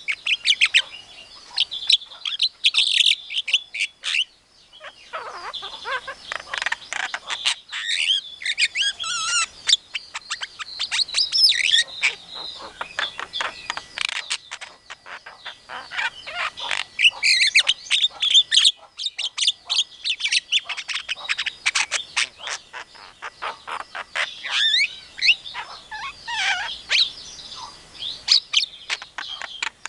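Javan myna calling in a long varied run of quick chirps, whistled glides and harsh squawks, broken by a few short pauses.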